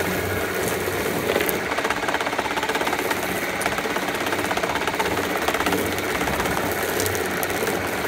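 Motorised chicken plucker running: its spinning shaft of rubber fingers slaps against a scalded chicken held down into the box, making a steady, fast clatter.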